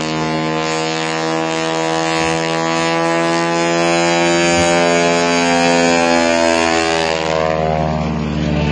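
Propeller aircraft flying past with its engine at high power, the engine note sliding steadily lower in pitch as it goes by.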